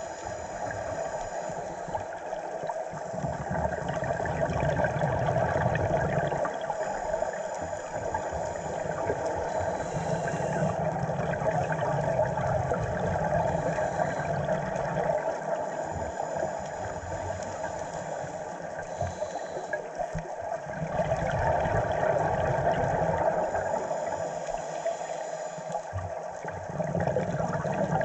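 Scuba regulator breathing heard underwater: long rushes of exhaled bubbles lasting several seconds each, separated by short pauses, over a steady muffled hiss.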